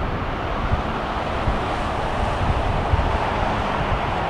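Steady roar of a jet airliner's engines heard at a distance, with wind gusting on the microphone.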